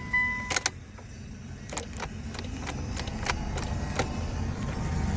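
A car being started with a single jumper wire to get around a no-crank fault. A steady electronic beep stops about half a second in, then a string of sharp irregular clicks sounds over a low rumble that builds steadily louder.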